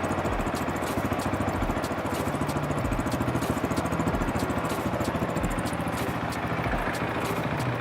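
Husqvarna 701 single-cylinder four-stroke engine idling steadily through its stock exhaust.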